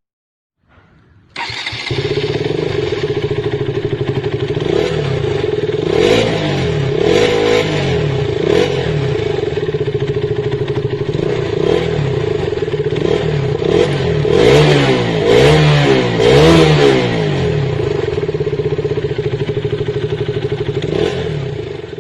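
KTM motorcycle engine starting about a second and a half in, then idling steadily. It is revved in a few quick throttle blips, once near the middle and again a little later.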